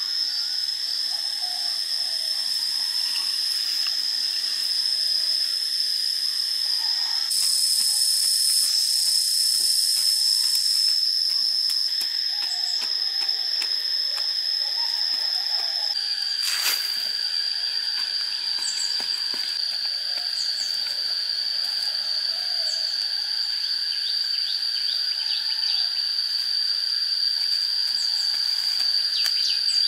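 Steady high-pitched insect drone that steps slightly lower in pitch about halfway, with scattered knocks and scrapes of a wooden stick digging into soil and one sharper knock a little past halfway.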